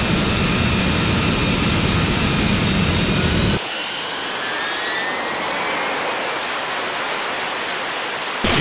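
AV-8B Harrier II's Pegasus turbofan jet engine running loudly, with a deep rumble and whine. About three and a half seconds in, the sound changes abruptly to a thinner jet roar with a whine rising in pitch as the jet goes to takeoff power.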